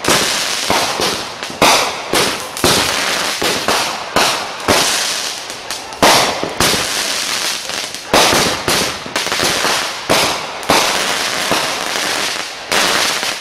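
Consumer aerial fireworks going off in quick succession: a string of sharp bangs, about one or two a second, over a steady hiss.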